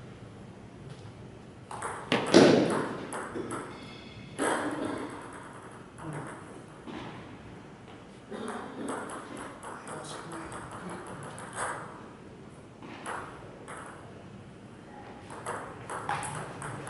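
Table tennis ball clicking off the paddles and the table in fast rallies, over and over. There is a louder burst of noise about two seconds in.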